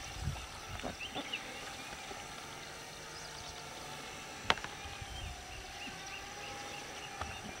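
Faint, steady hum of a small electric drone's propeller motors, drifting slightly in pitch, with a bird chirping in a quick even series during the second half and one sharp click about four and a half seconds in.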